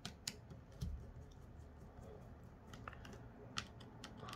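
Faint, scattered small clicks and ticks of a precision screwdriver working small Phillips screws out of a Samsung A21s phone's midframe, with a soft low knock about a second in.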